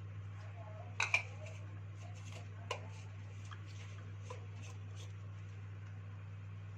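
A few light clicks and taps of small parts being handled during dive-torch assembly, two sharp ones close together about a second in and another near the three-second mark, over a steady low hum.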